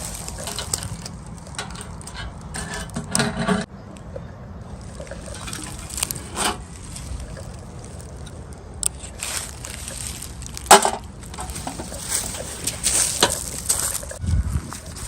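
Toy packaging being handled and opened: rustling and crinkling with scattered sharp clicks and taps, the loudest click about eleven seconds in.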